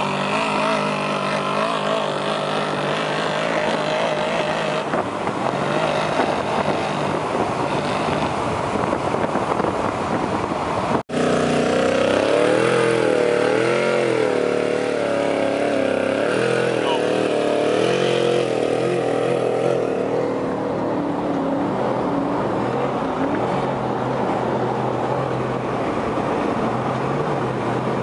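Trophy truck's V8 engine running hard, its revs rising and falling in quick waves. The sound cuts out for an instant about eleven seconds in.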